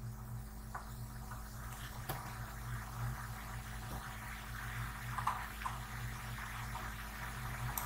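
Steady low electrical hum and faint hiss from the recording setup, with a few faint computer-mouse clicks.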